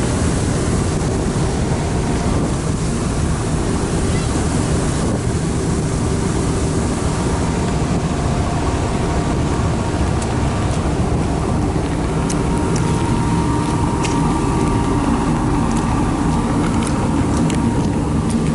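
Car ferry under way: the ship's engines drone steadily under a rushing of wind and water, with a few light clicks in the second half.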